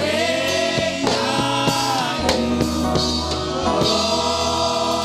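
Live Nigerian gospel praise music: voices singing in a choir over a band with a steady bass line and drum kit strokes.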